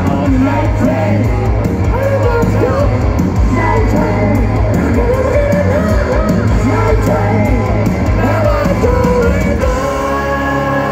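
Live rock band playing at full volume, a male lead vocal singing over heavy bass, guitars and drums, heard from the audience in a large hall.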